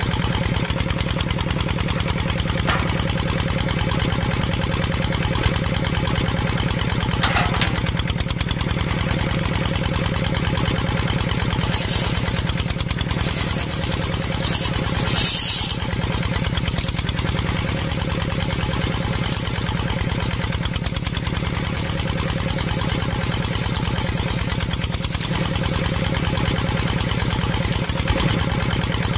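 Miniature belt-driven flour mill running steadily, its small motor turning a line shaft and belts with an even mechanical hum. About twelve seconds in, wheat grains pour into the mill's hopper with a rattling hiss lasting a few seconds, and the mill then grinds them into flour.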